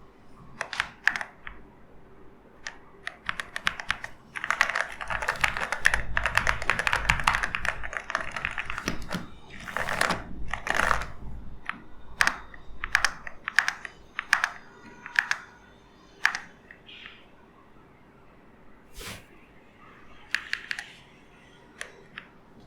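Typing on an EWEADN V82 transparent mechanical keyboard: scattered keystrokes, a fast run of typing from about four to nine seconds in, then a few clusters and only occasional single clicks toward the end.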